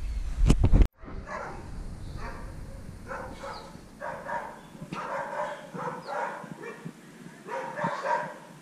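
A dog vocalizing in several short pitched bouts of under a second each, with a rumble of handling or wind noise before a cut about a second in.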